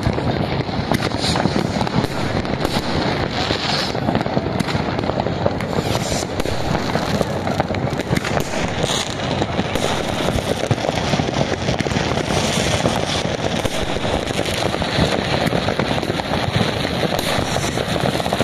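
Many consumer fireworks going off at once, rockets bursting and firecrackers cracking in a dense, unbroken barrage of bangs and crackle.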